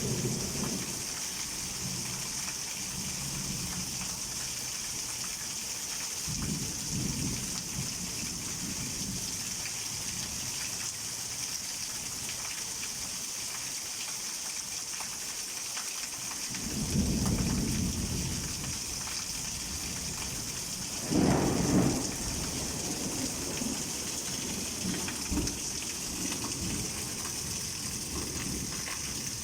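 Heavy rain pouring steadily, with thunder rumbling several times; the longest roll comes about 17 seconds in, and the loudest, sharpest clap comes a few seconds later.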